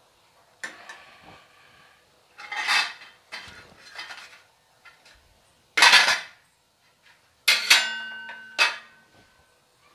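Metal cookware and utensils clattering: a few light knocks and scrapes, a loud sharp clank about six seconds in, then a ringing metal clang near the end, struck again a second later.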